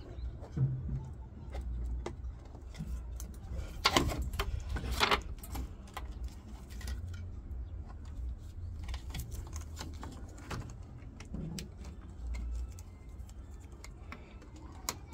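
Small plastic clicks and rattles of wire-harness connectors being handled and plugged onto a washing machine control board, with two louder clatters about four and five seconds in.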